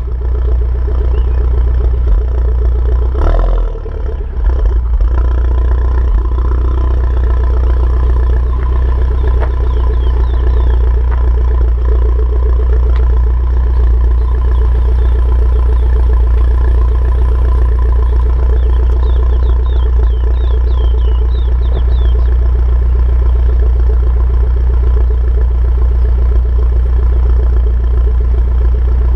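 Mini Cooper S R56's turbocharged 1.6-litre four-cylinder engine, on a JCW exhaust with the catalytic converter removed, idling steadily. A single sharp knock comes about three seconds in.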